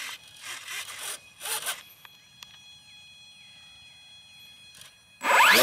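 Short bursts of rustling noise, then near the end the E-flite Carbon-Z Cub's 50-size brushless outrunner motor and 15-inch propeller spool up suddenly with a loud, steeply rising whine as the throttle is opened for takeoff.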